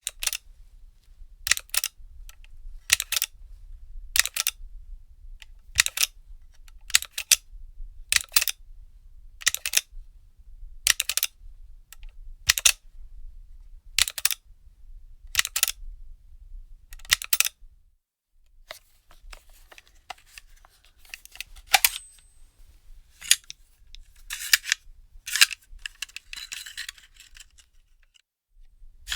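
A firearm magazine being handled: sharp metallic clicks, many in close pairs, come about every second and a half for the first seventeen seconds. After that come scattered clicks and a rattling scrape.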